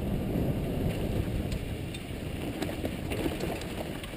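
Mountain bike riding down a rocky dirt trail: a low rumble of wind on the microphone and tyres on the ground, with a few sharp clicks and rattles from the bike.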